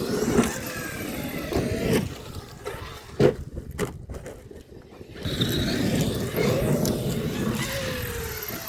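Electric RC trucks driving on dirt: brushless motors whining up and down with the throttle over the crunch of tyres on loose dirt, with one sharp knock about three seconds in.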